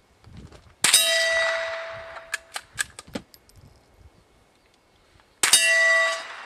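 Two gunshots about four and a half seconds apart, each followed by a ringing metallic clang, as of a steel target being hit, that fades over about a second and a half. A few faint sharp clicks come between them.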